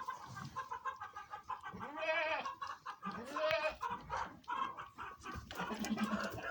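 Goats bleating, with two long arching calls in the middle. Chickens cluck in short runs between the bleats.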